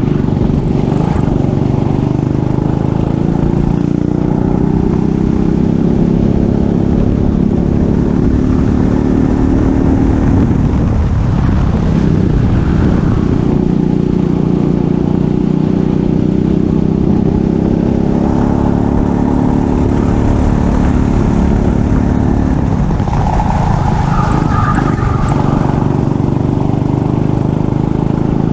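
Kart engine running hard in a race, its pitch climbing steadily and dropping off twice, about 11 and 23 seconds in, as the driver eases off and picks up the throttle again.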